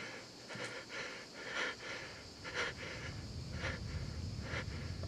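A man breathing heavily through an open mouth, one loud breath roughly every second. A low rumble sets in about three seconds in.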